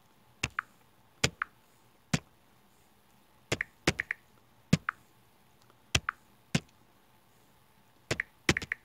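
Irregular sharp taps on a tablet touchscreen, about eighteen in small clusters of one to three, as numbers are keyed into the on-screen number pad.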